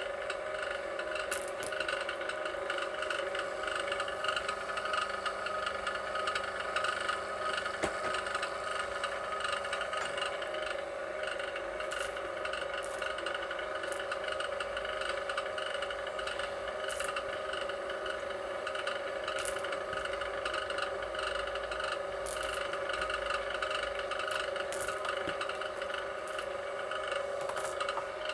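VEVOR electric wire stripping machine running with a steady whir as copper wire is fed through its blades, with scraping and scattered sharp clicks.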